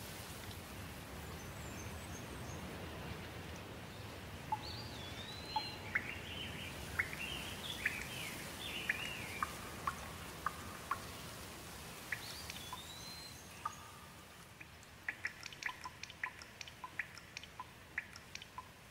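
Steady rain falling, with birds chirping and calling over it from about four seconds in. The rain eases after about fourteen seconds, leaving a quick run of short sharp ticks.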